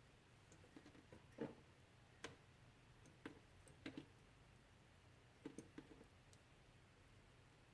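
Faint, irregular drips of water from melting ice, about eight soft ticks a second or so apart, the loudest about one and a half seconds in.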